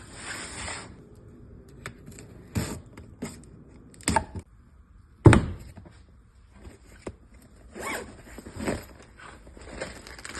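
A new power router and its packaging being handled: rustling, scraping and a series of clunks, the loudest about five seconds in. The router's motor is not running.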